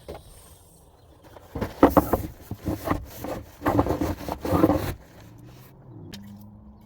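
Rustling and scraping close to the microphone for about three seconds, then a low steady hum.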